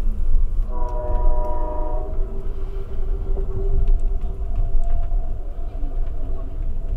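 A multi-chime train horn sounds one chord for just over a second, about a second in, heard from inside a passenger car over the steady low rumble of the car rolling on the rails. Fainter tones linger afterwards under the running noise.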